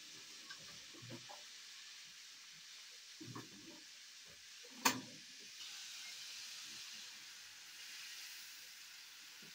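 Water running from a water dispenser's tap into a plastic cup, a faint steady hiss, with a sharp knock about halfway through. The hiss then grows louder as the water is poured into a hot frying pan and sizzles.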